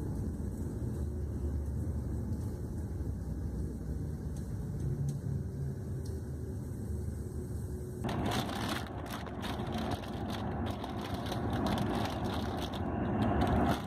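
Cabin noise inside a long-distance coach at highway speed: a steady low rumble of engine and tyres. About eight seconds in it changes abruptly to a brighter, broad rush of road and wind noise with many small clicks and rattles.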